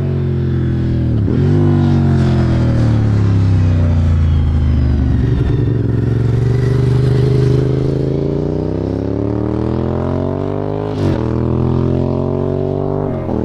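Sports motorcycle engine passing close by. Its pitch drops with a gear change about a second in, then sinks as the bike slows into a bend. From about halfway it rises as the bike accelerates away, with quick gear changes breaking the note near the end.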